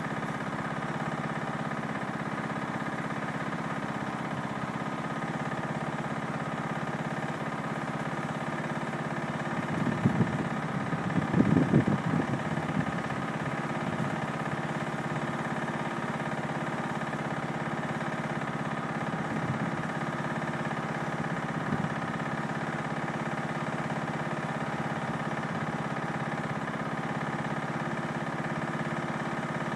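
A steady engine-like hum of several even tones, with a short louder rough burst about ten seconds in.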